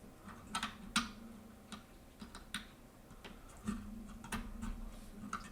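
Irregular small sharp clicks and taps of hands handling plastic parts and wires while a six-pin connector is pushed onto an SD card reader module's pins.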